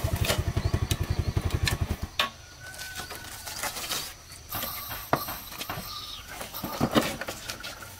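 Yamaha step-through motorbike's small single-cylinder engine running with a steady throb, then switched off about two seconds in. Afterwards, birds call and there are a few knocks.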